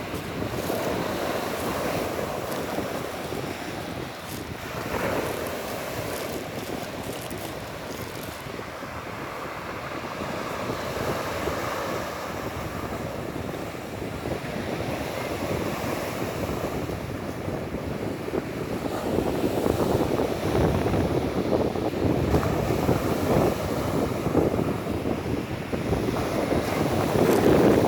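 Storm waves breaking and washing on the shore, with wind buffeting the microphone. The surf grows louder in the last third.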